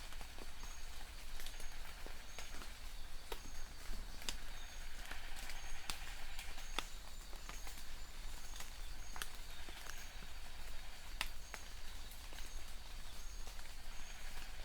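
Steady rain with many sharp drops and drips landing at irregular moments, over a low hum. A short high chirp repeats about once a second throughout.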